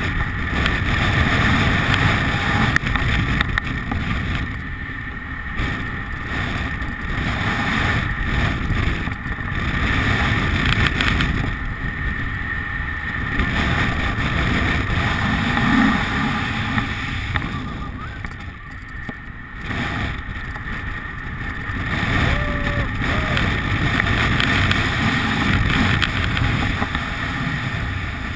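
Strong wind rushing over the action camera's microphone during fast, low speed-flying, a steady noisy rush whose level swells and eases every several seconds.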